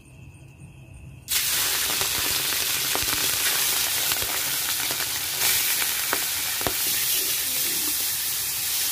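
Small prawns hitting hot oil in an aluminium kadai and frying. The sizzle starts suddenly about a second in and holds steady, with a few sharp spatula scrapes and taps as the prawns are stirred.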